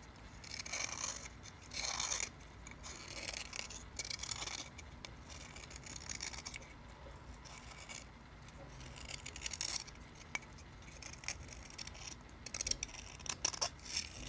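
Pocket-knife blade scraping the inside of a briar pipe bowl in short, irregular strokes, loosening the black carbon left after soaking.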